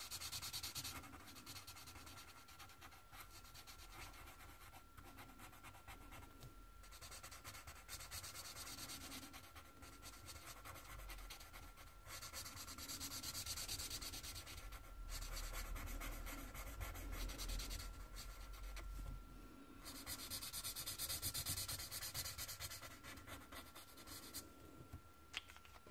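Felt-tip marker rubbing back and forth on tan paper while colouring in, in faint scratchy stretches of a few seconds each with short pauses between them.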